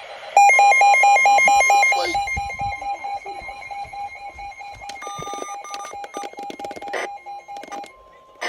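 Electronic alert beeps of an Emergency Alert System tornado warning. A loud, rapidly pulsing beep lasts about a second and a half, then fainter repeated beeps run on until a short steady tone near the end.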